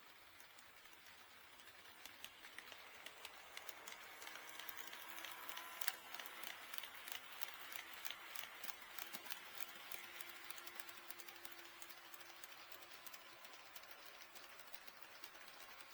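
HO-scale model train running past on track, its wheels clicking rapidly over the rail joints; the clicking grows louder toward the middle and then fades as the train moves away.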